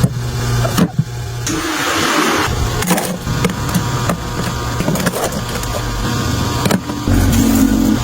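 Drinks and food being restocked into a mini fridge: scattered knocks and clicks of containers being set down, with a short rustle of packaging about two seconds in, over a steady low hum.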